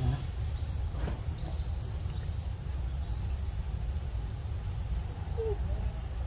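Forest insects trilling steadily at a high pitch, with a short upward-sliding chirp repeating about once a second, over a low steady rumble.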